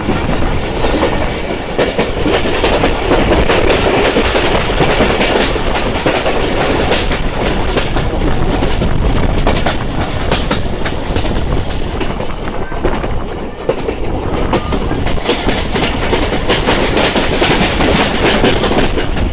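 Pakistan Express passenger coaches running along the track, heard from an open window beside the wheels: a steady rumble with the wheels clattering over rail joints.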